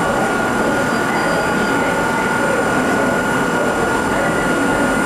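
Hakone Tozan Railway Moha 1 electric railcar standing at the platform, giving a steady hum with one steady high whine held over it.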